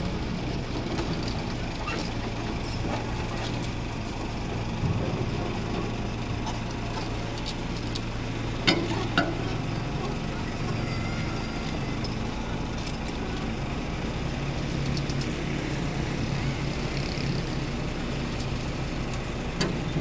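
Doosan DH55 mini excavator's diesel engine running steadily, its note shifting slightly partway through as the arm works. Two sharp knocks come about nine seconds in.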